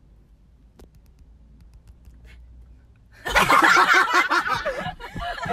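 Low, faint rumble for about three seconds, then a sudden loud burst of laughter and shouting from several voices.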